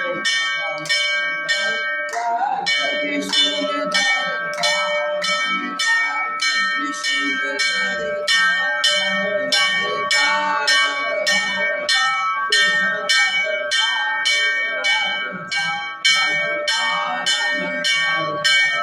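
Temple bell rung steadily during aarti, about three strokes a second, its ringing tones overlapping, with voices underneath.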